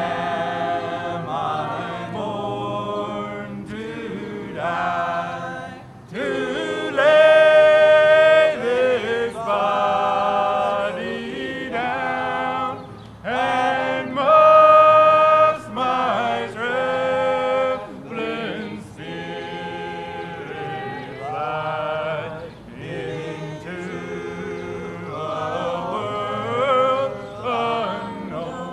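Voices singing together in a slow chant with long held notes, swelling louder about seven seconds in and again about fourteen seconds in.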